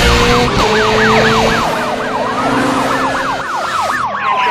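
Police siren sound effect in a fast yelp, about three rising-and-falling sweeps a second, over a car engine running in the first half; a slower siren wail slides down in pitch near the end.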